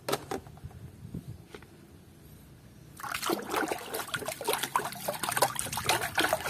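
A hand sloshing and swishing through muddy water in a basin, rinsing a toy, with many small splashes and drips from about three seconds in. Before that there are a few faint clicks of plastic toys being handled.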